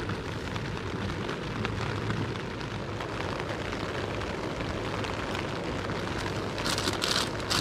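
Steady rushing of a gas camping stove burner heating a pot, mixed with rain pattering on the nylon tent. Near the end a crisp packet crackles.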